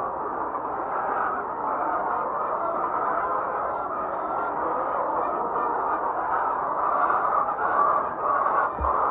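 A large flock of laying hens clucking and calling together in a continuous dense chatter, with a brief low thump near the end.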